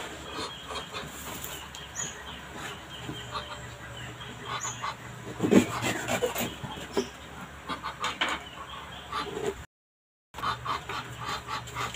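A live duck shut in a cardboard gift box calling, amid rustling paper and knocks of cardboard as the box is handled.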